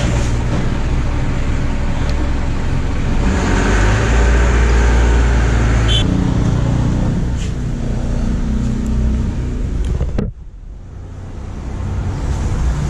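A vehicle engine running close by, a loud steady low rumble with a hum in it. It drops away abruptly about ten seconds in, then builds back up.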